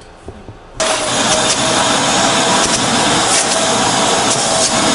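Vacuum cleaner switched on about a second in, then running steadily with a constant whine as its wand is worked over a fabric car seat.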